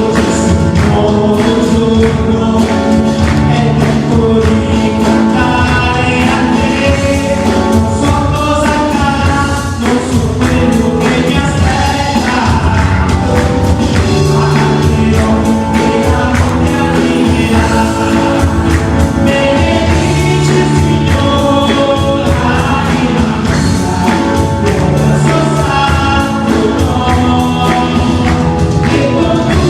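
Christian worship music: a choir singing a gospel-style song over a band with a steady beat.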